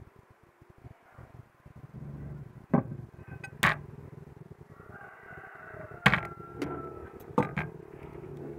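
Several sharp knocks and clatters as a steel kukri blade is handled and laid on a wooden workbench, over a steady low hum.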